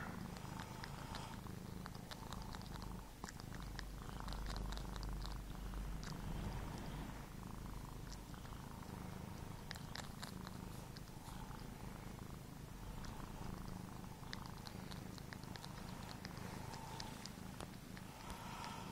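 Kitten purring steadily, close up, while suckling on a person's earlobe, with small wet clicks from its mouth scattered throughout.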